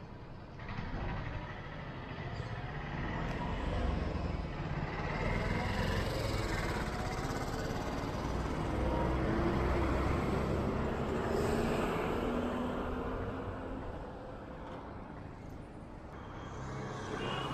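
Street traffic: motor vehicle engines running past on the road, the sound swelling through the middle and then fading.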